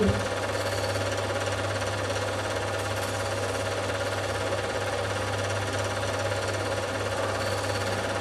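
Film projector running: a steady mechanical whirr over a constant low hum.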